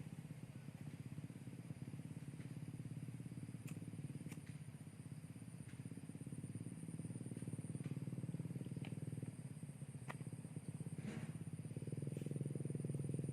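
Steady low rumble with a fine rapid pulse, like a small engine running, joined by a thin steady high-pitched whine and a few faint clicks.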